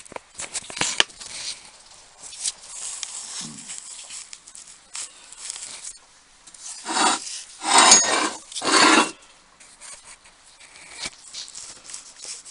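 Handling of the dismantled bench drill's metal parts: scattered clicks and light knocks, with three louder scrapes close together about seven to nine seconds in.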